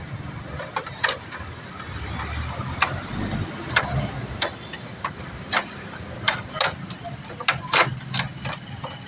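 Irregular sharp knocks and clatters, about a dozen, the loudest near the end, as the radiator fan assembly and its plastic shroud are worked loose and lifted out. A steady low engine hum runs underneath.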